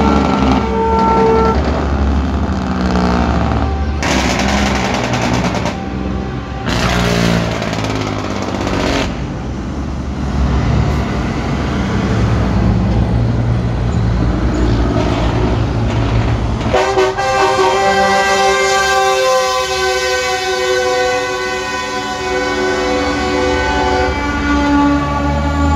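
Semi-truck diesel engines rumbling as the trucks pass, with truck air horns blowing: a held chord at the start, and from about two-thirds of the way through a long, steady multi-tone horn chord of the kind made by train-style air horns.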